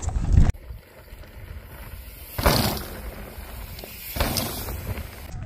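Wind rushing over the microphone, an even noise with two louder gusts about two and a half and four seconds in.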